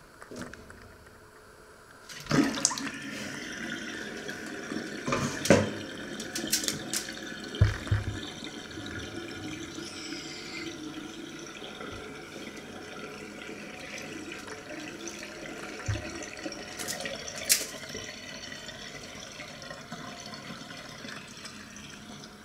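Water draining out of a stainless-steel kitchen sink through the open plughole, a steady rushing that starts about two seconds in, with a few sharp knocks against the metal sink.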